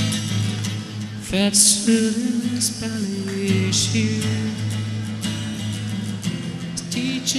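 Acoustic guitar played live, strummed and picked steadily, with a man's voice singing a slow, held melody over it from about a second in.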